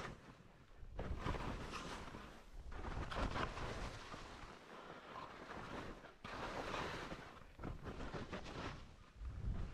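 Skis hissing through powder snow in a run of turns, the sound swelling and fading about five times as each turn digs in and sprays snow.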